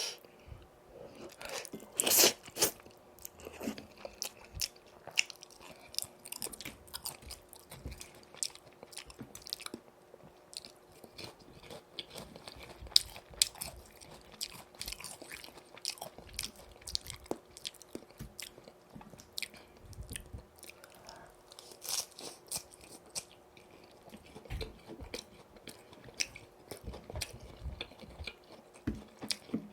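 Close-up eating sounds of crispy fried boneless chicken: repeated crunchy bites with crackling, and chewing between them, loudest about two seconds in and again about two-thirds of the way through.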